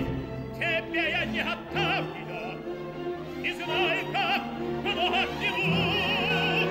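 Operatic tenor singing with a wide vibrato over a full orchestra, in short phrases that end on a long held note.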